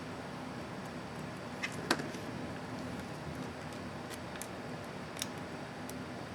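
A few small sharp plastic clicks from a laptop keycap and its retainer clips being handled and fitted, the loudest about two seconds in, over a steady low hum.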